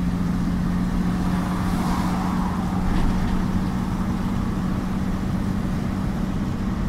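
Mercedes-Benz mixer truck's diesel engine running at a steady, unchanging pitch, heard from inside the cab.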